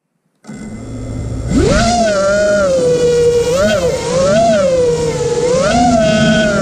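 Eachine Wizard X220 quadcopter's brushless motors and propellers heard from on board: a low rumble, then about a second and a half in a sharp rising whine as the throttle comes up, after which the pitch rises and dips several times with the throttle in flight.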